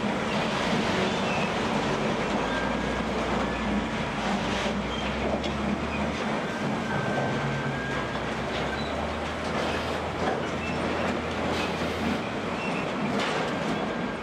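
Volvo L120 wheel loader's diesel engine running and changing speed several times as it works, with occasional knocks and clatter and a few faint metallic squeaks.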